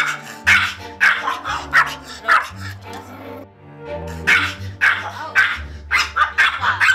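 Small Maltese dog barking angrily in quick, repeated barks, roughly two a second, with a short pause midway, over background music.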